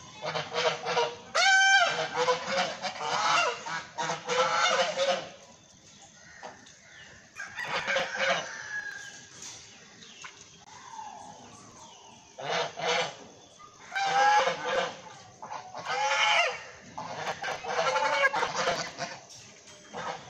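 White domestic geese honking in bursts of rapid, repeated calls, with a lull of several seconds in the middle before the honking picks up again.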